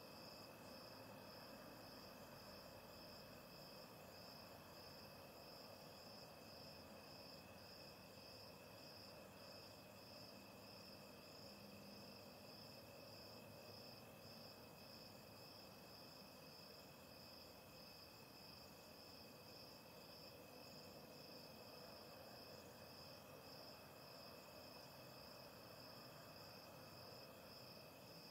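Faint night insects, crickets, calling: one steady high trill with a second, higher call pulsing evenly and unbroken above it.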